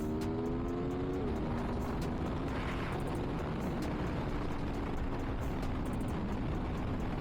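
Aprilia Tuono V4's 1077cc V4 engine through its stock exhaust, revs climbing for about a second, then dropping sharply at an upshift and settling into a steady cruise. Heavy wind noise from riding at speed runs under it.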